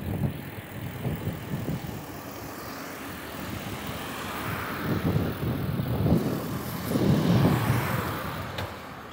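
A car approaching and passing close by, its tyre and engine noise swelling to a peak about seven seconds in and then fading away, heard from a moving bicycle over the rumble of wind and road.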